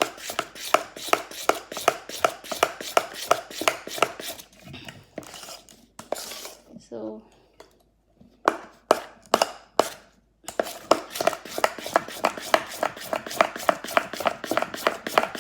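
A utensil beating chickpea-flour batter in a bowl, clicking against the bowl about four to five times a second; the beating stops for a few seconds midway and then starts again.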